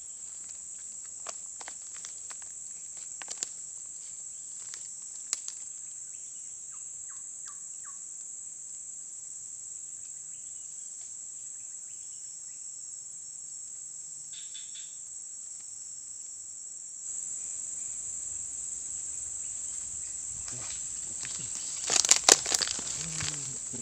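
A steady, high-pitched insect drone from the surrounding scrub, growing a little louder about seventeen seconds in, with scattered faint clicks. Near the end comes a short, loud burst of noise.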